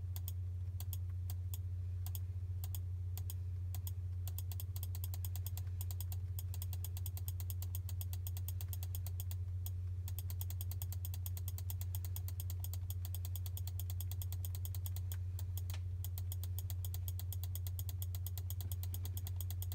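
A steady low hum with a fast run of faint ticks over it; the ticks are sparse at first and come thick and quick from about a third of the way in.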